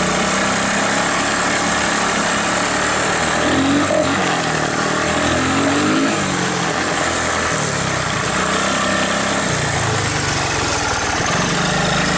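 The 1981 Honda ATC185S three-wheeler's single-cylinder four-stroke engine running under way, its note rising and falling with the throttle in the first half and steadier after.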